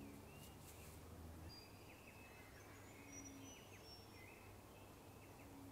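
Faint outdoor ambience: birds chirping with short calls and thin high whistles, over a low steady rumble. A couple of brief low tones sound about three seconds in and near the end.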